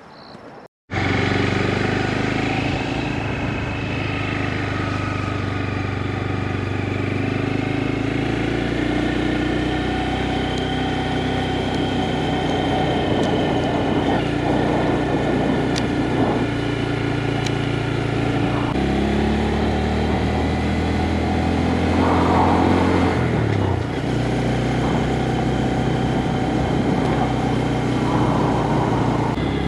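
Honda Grom's small single-cylinder motorcycle engine running steadily under riding, starting abruptly about a second in. Its note steps down about two-thirds of the way through and changes again a few seconds later.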